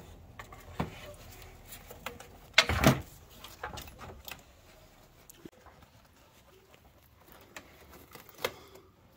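Plastic intake plenum of a 3.6 V6 being worked loose and lifted off the engine: scattered clicks and knocks of plastic and hoses, the loudest bump about three seconds in, then quieter handling.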